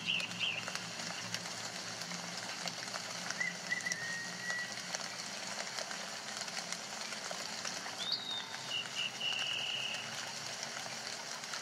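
Birds calling now and then over a steady hiss: a chirp near the start, a short whistled phrase about three and a half seconds in, and a rising call then a brief trill about eight seconds in.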